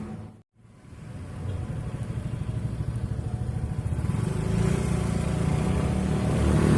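A small engine running with a fast, even pulse, growing louder from about four seconds in, after a brief dropout near the start.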